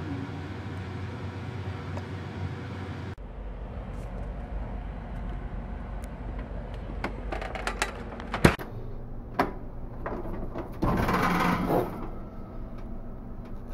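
A steady kitchen hum, then scattered clicks and one sharp knock around muffin tins in an open oven, followed by about a second of scraping slide near the end.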